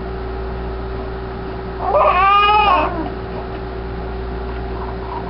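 A cat gives one long, whining meow about two seconds in, rising and then falling in pitch.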